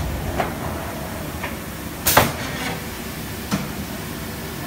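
Four knocks and clunks of metal tooling being handled at a press, the loudest just after two seconds in, over a steady machine hum.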